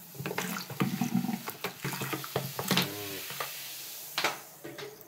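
Coca-Cola poured from a plastic bottle splashing into a bathroom sink and fizzing around a clogged drain. The pouring ends about four seconds in.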